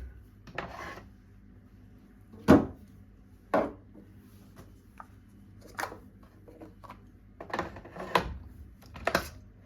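Hard plastic clicks and knocks from a Nescafé Dolce Gusto machine's pod holder being taken out, the used capsule swapped for a fresh one, and the holder pushed back in. The knocks come one at a time at uneven intervals, the sharpest about two and a half seconds in.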